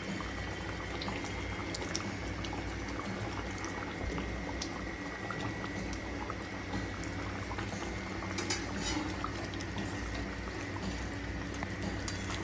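Spiced fish curry gravy simmering and bubbling steadily in a metal kadai with fried chitol fish pieces and potatoes in it. A few light clicks come about two seconds in and again near the end.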